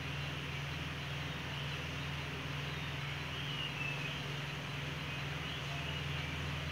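Steady low hum under an even background hiss, with a few faint high chirps about three and a half seconds in.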